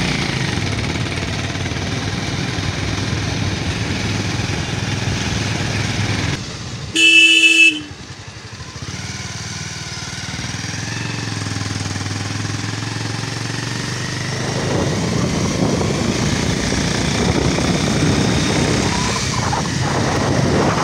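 Motorcycle engine running with wind rush on the microphone while riding a rough mountain road. About seven seconds in, a vehicle horn sounds once, loudly, for under a second; the engine noise then drops for several seconds before building up again toward the end.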